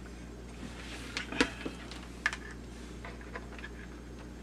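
Light clicks and knocks from handling the Lemax Eerie Go Round and connecting its power, the loudest about a second and a half in and another just after two seconds, over a faint steady hum.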